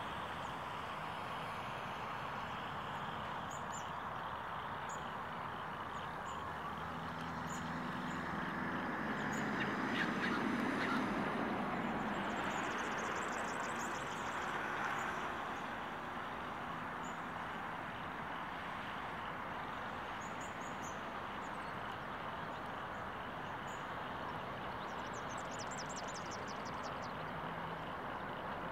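Distant diesel freight locomotives rumbling as a long freight train rolls slowly downgrade, the engine sound swelling about a third of the way in and then easing. Under it runs a steady hiss of rain, and short bird chirps break in twice.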